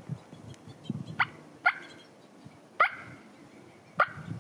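Turkey calls: four short, sharp notes, each falling steeply in pitch, spaced about a second apart, over a low rustle.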